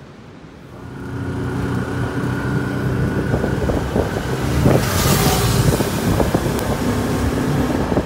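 Three-wheeled motorcycle taxi's small engine running while riding along a street, heard from the passenger seat with wind buffeting the microphone. The engine sound comes in about a second in; the wind is strongest about five seconds in.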